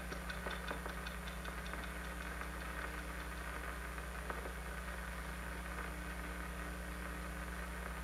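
Steady low hum and hiss of an old film soundtrack, with a rapid run of faint ticks, about six a second, fading out in the first two seconds.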